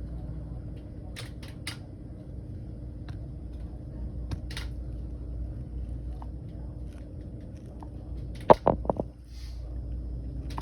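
Steady low hum of room ventilation with scattered faint clicks. About eight and a half seconds in, a quick run of four or five sharp knocks, the loudest sounds here.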